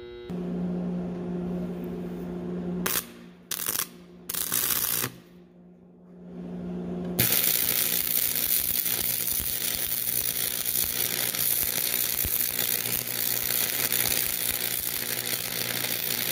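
Stick welding arc: three brief crackling strikes about three to five seconds in as the rod is started, then from about seven seconds the arc holds and crackles steadily until it cuts off at the end. Before the strikes and in the gap, the welding machine gives a steady electrical hum.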